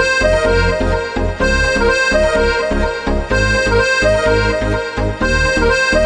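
Instrumental background music with a steady beat and a sustained melody line.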